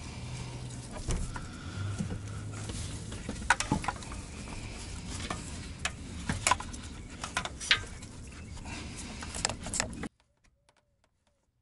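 Irregular metal clicks, clinks and scrapes as an oil filter wrench and gloved hands work at a car's engine oil filter. The sound cuts off abruptly about ten seconds in.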